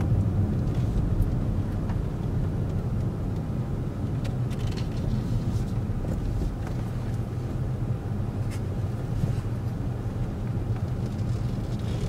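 Inside a car driving slowly: steady low rumble of engine and road noise in the cabin, with a few faint ticks.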